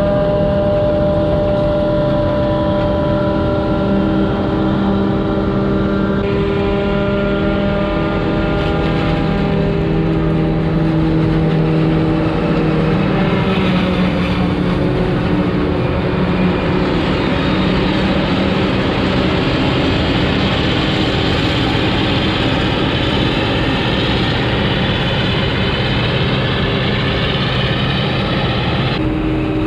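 Heavy diesel farm machinery working in maize silage harvest: forage harvester and tractor engines under load, running loud and steady. The engine note shifts in pitch and changes abruptly a few times.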